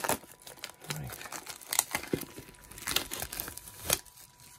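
Cellophane shrink-wrap being peeled and torn off a boxed Blu-ray case, crinkling and crackling in irregular bursts.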